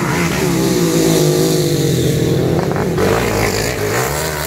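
Dirt motorcycle engine revving as the bike rides past on a dirt track, its pitch wavering up and down.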